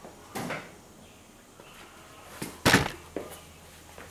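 A small shop stool being slid and set down on a concrete floor: a short scrape, then a loud thump about two and a half seconds in and a softer knock just after.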